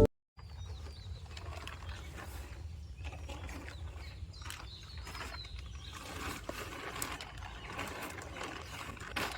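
Outdoor ambience: a steady low rumble under an even hiss, with scattered light clicks and a few faint high chirps.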